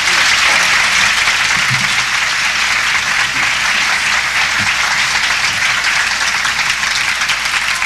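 Large seated crowd applauding, a steady even clapping that holds at full strength throughout.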